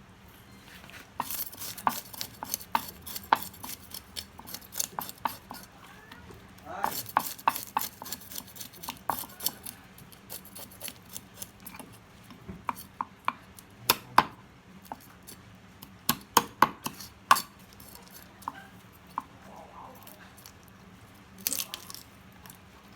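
Knife working a long-spine seabream on a cutting board: sharp knocks and taps in quick, irregular clusters with pauses between.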